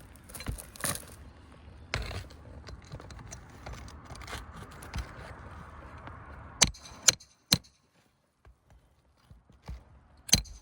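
Scraping and rustling against asphalt shingles during roof work, then a few sharp clicks about two-thirds of the way in and again near the end.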